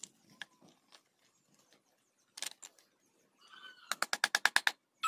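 Hand carving of a wooden spoon blank with a chisel: scattered light clicks and knocks of steel on wood, then near the end a fast run of sharp taps, about eight a second, that stops abruptly. A rooster crows briefly just before the taps.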